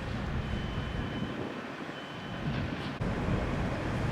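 Steady rumble of road traffic, with a faint high beep repeating about once a second.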